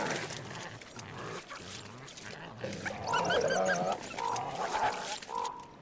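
Coyotes vocalising: low grunting sounds, then high, wavering yips and whines from about three seconds in.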